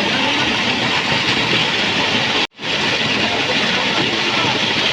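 Loud, steady rushing noise with faint voices underneath, cutting out completely for a moment about halfway through.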